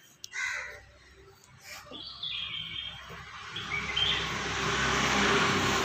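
Small birds chirping in short calls, with a steady hiss that grows louder over the last couple of seconds.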